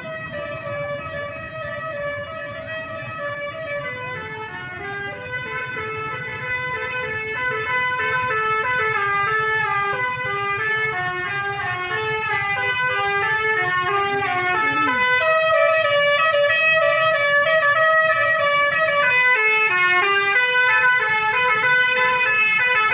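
Multi-tone telolet bus horn playing a long melody of quick stepping notes, growing louder over the first half, with a brief falling glide a little past the middle.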